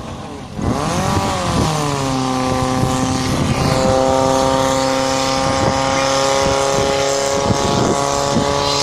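Portable fire pump engine revving up about half a second in, then holding steady at high revs while it pumps water into the hoses.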